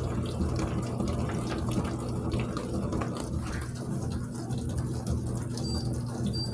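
Dishwasher running its cycle: water rushing and splashing inside the tub over the steady hum of its pump motor.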